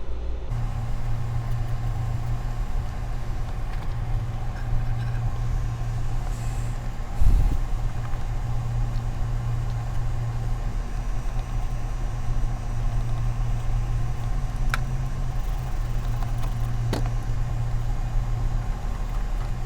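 Steady low mechanical hum, like a motor or engine running, with one thump about seven seconds in and a couple of faint clicks later.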